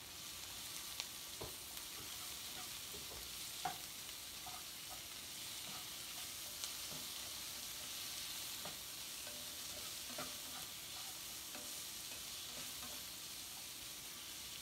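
Sliced vegetables sautéing in oil in a nonstick frying pan with a steady sizzle, while a spatula stirs them, scraping and now and then knocking against the pan.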